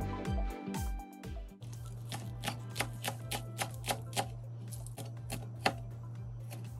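Kitchen knife slicing green onions against a cutting board: a run of quick taps, about three a second, starting about two seconds in, with the sharpest tap near the end. Background music plays for the first second and a half, then gives way to a steady low hum.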